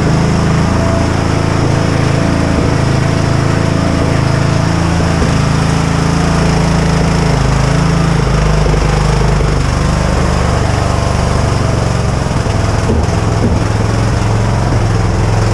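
Lawn mower engine running steadily, its speed shifting a little a few times.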